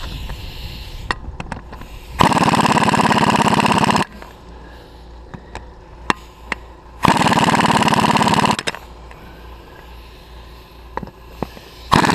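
Pneumatic impact wrench hammering in two bursts of about two seconds each, with a third starting at the very end, as it drives stiff, heavy-turning threaded fasteners. Small metallic clicks and knocks come between the bursts.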